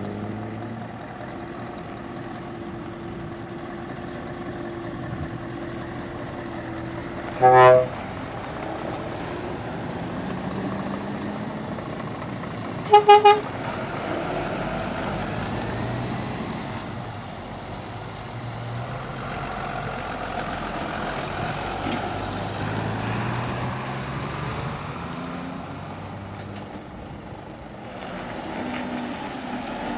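Scania trucks driving past, their diesel engines running and rising in pitch as they pull away. A truck horn sounds one short blast about seven and a half seconds in, then three quick toots about thirteen seconds in; these are the loudest sounds.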